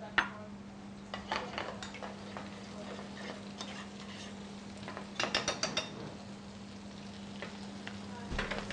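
Metal utensil stirring and clinking against a stainless steel frying pan of spinach, green beans and cream sauce. There is a quick run of clinks about a second in and another past the middle, over a steady low hum.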